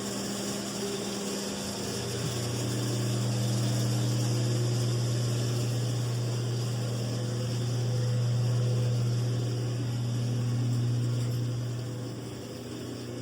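A motor running steadily, a low hum with a few higher overtones that swells a little in loudness and eases off near the end.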